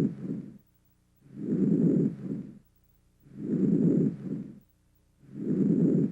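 Normal vesicular breath sounds heard through a stethoscope: a soft, low-pitched rushing, one breath about every two seconds. Each breath is a longer inspiratory sound followed by a brief, fainter sound early in expiration, with quiet between breaths.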